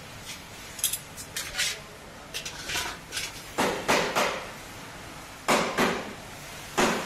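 Metal clinks and clanks from hands working the oil drain nuts loose under a Royal Enfield Bullet 350's engine: a run of light clicks at first, then louder clanks about three and a half, four, five and a half and seven seconds in.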